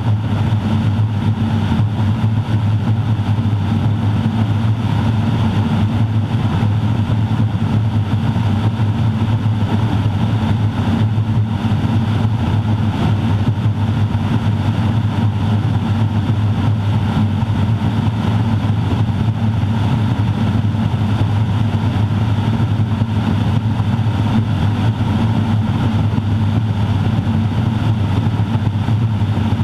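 Garrett TPE331-6 turboprop engine and propeller of a Grumman Ag Cat, heard from inside the cockpit in flight: a loud, steady drone with a strong low resonant hum, the uncomfortable resonance this airplane produces.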